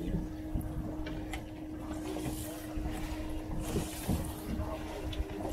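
Small motorboat at sea in a heavy swell: a low rumble of wind and water with a steady hum running under it.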